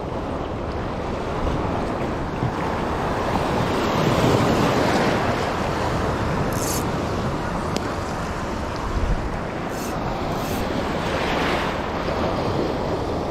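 Sea waves washing, mixed with wind rushing across the microphone: a steady rush that swells about four seconds in and again near the end.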